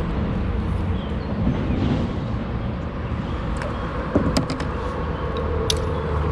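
Steady low mechanical hum with a faint held tone, and a few short sharp clicks about four to six seconds in.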